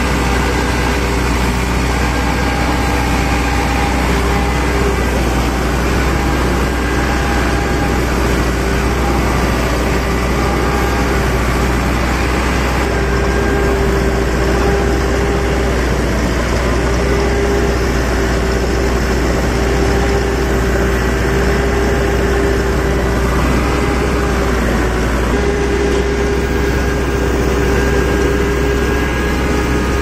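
Combine harvester running while cutting rice, heard from on board: a loud, steady engine and machinery drone with a constant whine over it.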